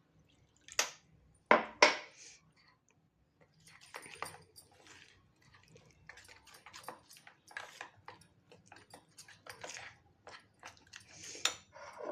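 A spoon clinking and scraping against a small bowl as ground spice powders are stirred into a paste, in irregular quick strokes. There are two louder knocks about a second and two seconds in.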